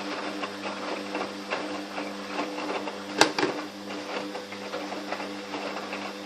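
Fagor washing machine running its wash cycle: the motor turning the drum with a steady hum, overlaid with irregular ticking and knocking and one sharp click about three seconds in.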